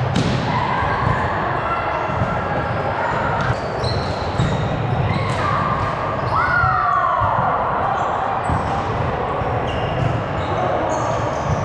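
Indoor volleyball game in an echoing gym: thuds of the ball and players' feet, short squeaks of shoes on the court floor, and players' voices. One longer falling squeal comes about six seconds in.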